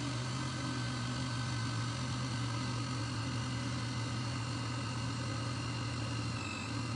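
Electric countertop blender running at a steady speed, its motor holding one constant hum, as it blends a thick mixture of milk, wafer biscuits and caramel flan powder.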